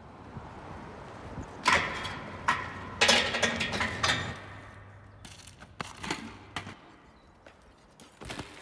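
A BMX bike and rider crashing at a metal street handrail: several sharp clanks and thuds about two to four seconds in, then a few lighter clicks and rattles, over a low steady hum.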